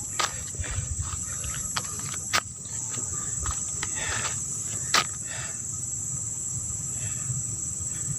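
Steady high-pitched chorus of insects, with a low rumble underneath and a few sharp clicks, the loudest about five seconds in.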